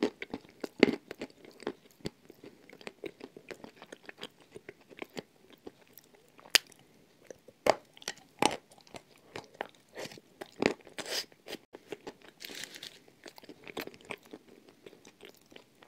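Dry edible clay chunks being bitten and chewed: irregular sharp crunches and crackles, with a few much louder bites.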